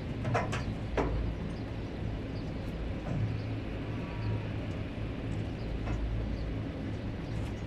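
Cattle being loaded into a livestock trailer: a steady low rumble runs throughout, with a few sharp knocks in the first second.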